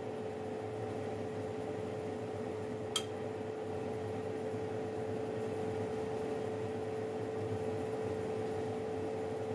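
Oven running with cookies baking inside: a steady fan whir with a constant humming tone, and a single sharp tick about three seconds in.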